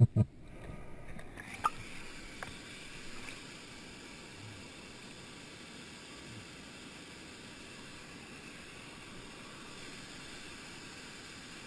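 Steady rush of flowing stream water, with a couple of faint clicks about one and a half and two and a half seconds in.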